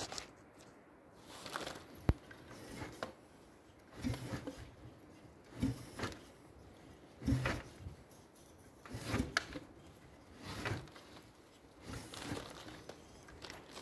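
Original CCW KEC 340 two-stroke snowmobile engine being turned over slowly by hand, giving a short chug about every one and a half seconds, eight or so times. It still turns over, so the engine is not seized after sitting about fifteen years.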